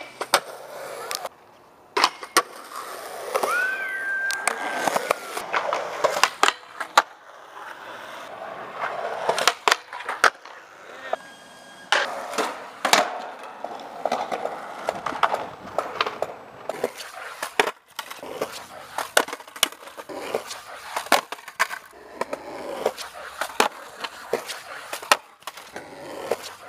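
Skateboard sounds: polyurethane wheels rolling on concrete, broken by many sharp cracks of tail pops, landings and board slaps, with trucks grinding a metal handrail near the start.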